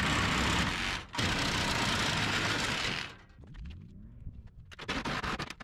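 Sawzall reciprocating saw cutting through the truck's sheet-steel front end and core support. It pauses briefly about a second in, runs on, and stops about three seconds in, leaving a few faint knocks.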